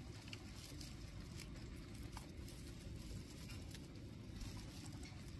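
Guinea pigs rustling and munching in a pile of dry hay: faint, irregular crackles and clicks over a low steady hum.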